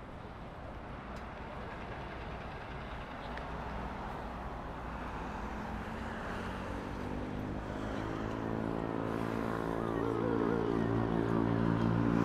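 City road traffic with tyre and engine noise, growing louder as a city bus draws close; the bus's engine hum builds and is loudest near the end.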